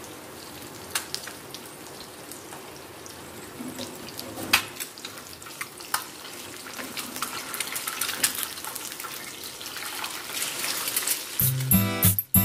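Eggs frying in oil in a nonstick pan, a steady sizzle broken by a few sharp scrapes and taps of a plastic spatula against the pan. Music comes in near the end.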